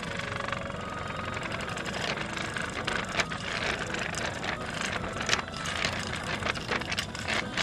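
Domestic cat purring steadily close to the microphone, a continuous low pulsing rumble, with scattered sharp clicks over it.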